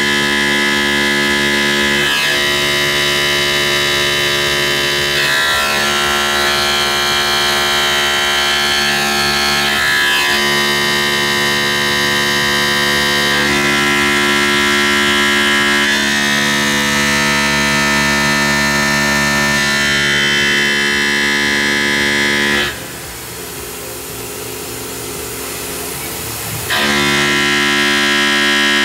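Background music of sustained synthesizer chords that change every few seconds, with steady machine noise under it. About 23 seconds in, the chords drop out for about four seconds, leaving a quieter even hiss, then return.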